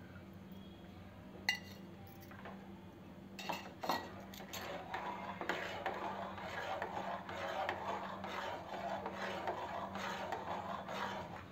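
A spoon stirring and scraping inside an aluminium pot of milk thickened with custard powder, with rapid clinks and scrapes against the pot from about three and a half seconds in. There is a single sharp clink of metal on the pot about a second and a half in.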